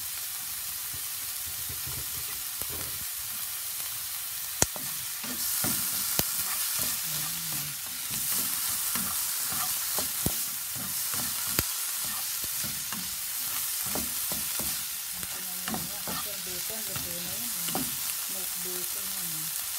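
Diced onion and bacon sizzling in butter in a nonstick frying pan as they are stirred, with a few sharp taps of the utensil against the pan. The sizzling grows louder about five seconds in.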